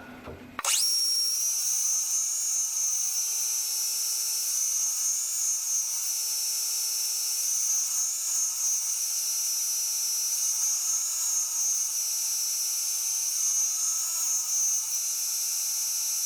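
Metal lathe starting up and running with a steady high whine, starting about half a second in, its pitch wavering slowly every few seconds.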